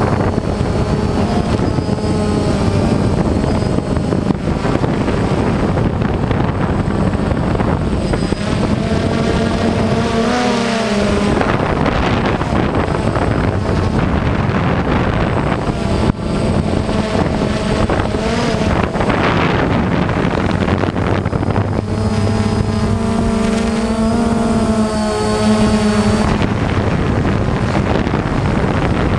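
Electric motors and propellers of an FPV remote-control aircraft buzzing in flight, their pitch rising and falling with the throttle, with wind rushing over the onboard microphone.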